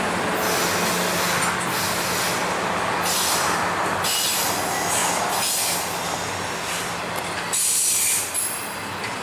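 Norfolk Southern intermodal freight train's flatcars loaded with highway trailers rolling past on steel rails, with repeated high-pitched wheel squeal coming and going, loudest about eight seconds in.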